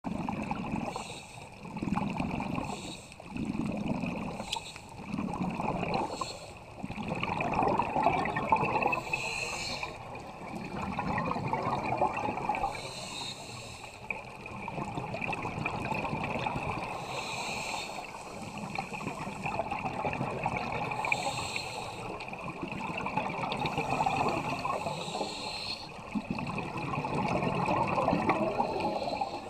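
Scuba diver breathing through a regulator underwater: repeated swells of exhaled bubbles gurgling and hissing, short and quick at first, then longer, slower breaths every few seconds.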